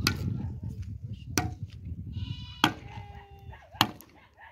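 Steel shovel blade striking and scraping dry, stony earth: four sharp strikes about a second and a quarter apart. Livestock bleat about halfway through.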